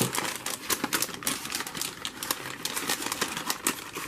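Plastic lure packaging being handled: a clear bubble tray and its printed plastic bag crinkle and crackle under the fingers in a dense, irregular run of small clicks as the tray is slid back into the bag.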